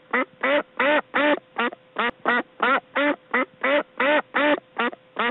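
A duck quacking over and over in quick, even succession, about three quacks a second.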